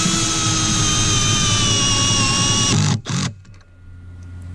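Milwaukee cordless drill/driver driving a screw into an antenna mount bracket: a steady motor and gearbox whine whose pitch drops slightly as the screw bites. It stops about three seconds in, then gives one short second burst.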